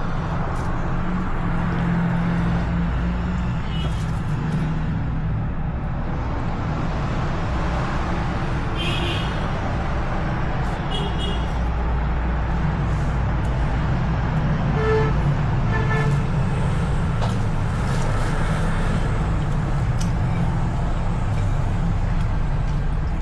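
Steady low background rumble, like road traffic, with a few brief high-pitched toots.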